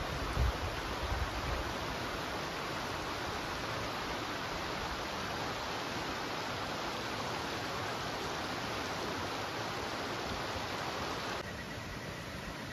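A clear mountain river running and babbling in a steady, even rush. There are a few low rumbles in the first second or two. About a second before the end the rush drops to a softer, quieter level.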